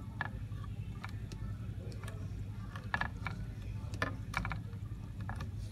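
A scatter of small sharp clicks and taps from the input switches of a breadboard logic circuit being set to the next input combination, over a steady low hum.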